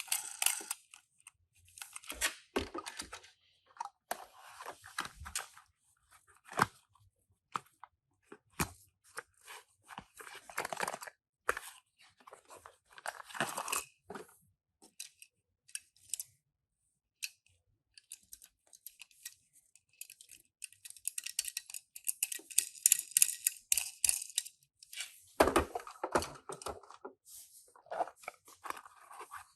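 Toy packaging being handled and opened: irregular crinkling, rustling and tearing of plastic and cardboard, in short bursts with pauses. It is densest about two-thirds of the way through.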